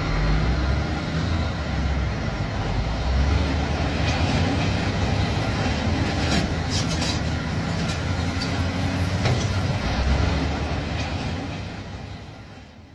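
Linde forklift engine running while its hydraulics work a tire-gripper attachment, with a few metallic clanks about six to seven seconds in. The sound fades out near the end.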